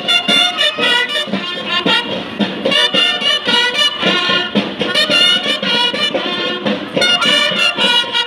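Marching band of brass horns and drums playing a march with a steady, even drumbeat.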